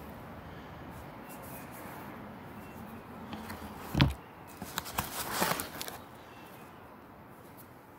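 Rocks being handled and set down on a cloth-covered table: a single thump about four seconds in, then a second or so of small stone clicks and rustling. Before that there is only a faint steady background hiss.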